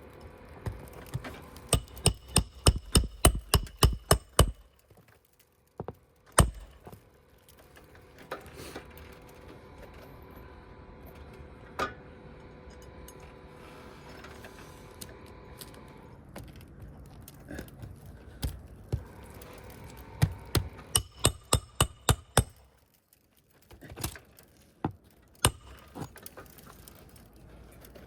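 Hammer driving roofing nails into asphalt shingles: quick runs of sharp blows, about three or four a second, a couple of seconds in and again past the middle, with single knocks between.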